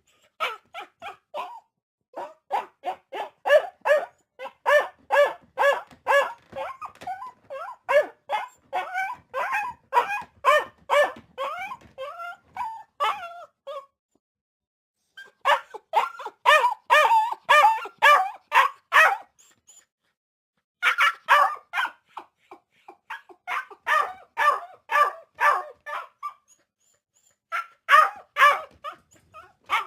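Dog barking in quick runs of sharp barks, several a second. The runs are broken by three short pauses.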